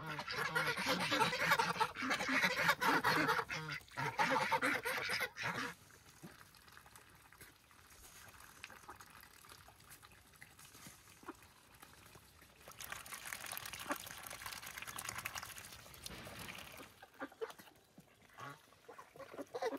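Domestic geese and ducks honking and quacking loudly for the first five or six seconds. After that it goes quieter as they dabble and splash with their bills in a water trough, with a louder stretch of splashing a little after the middle.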